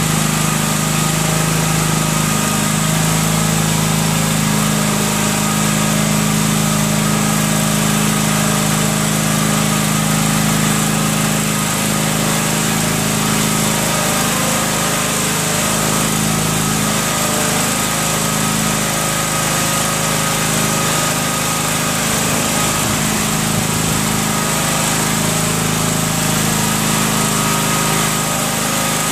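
Air Horse aircraft tug's small engine running steadily as it tows a Beechcraft across the hangar floor.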